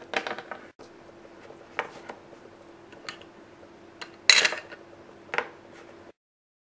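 Light clicks and taps from hard plastic toy figures being handled and set down on a tabletop, about five of them, the loudest a little past four seconds in, over a faint steady hum. The sound cuts off suddenly near the end.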